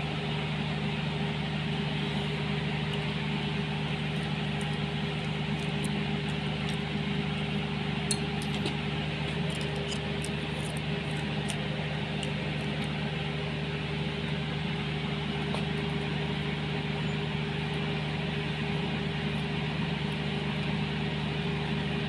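A steady mechanical hum from a running motor, with a few faint, light clicks about eight to twelve seconds in.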